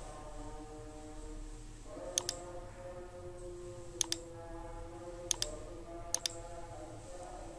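Computer mouse button clicks, four times, each a quick pair of clicks, about two, four, five and six seconds in. A faint bed of steady sustained tones sits underneath.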